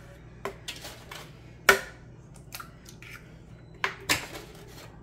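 Eggs being cracked open into a plastic blender jar: a few sharp taps of shell, the loudest about a second and a half in, and two close together near the end.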